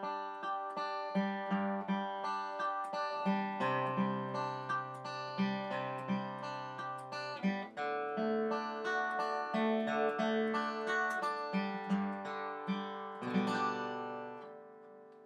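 Background music: a tune on a plucked-string instrument with chords and a moving bass line, fading out near the end.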